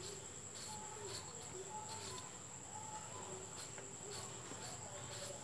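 Crickets chirping with a steady high-pitched trill, under faint repeated scraping strokes, about one every half second, of a green mango being shredded with a hand-held serrated shredder.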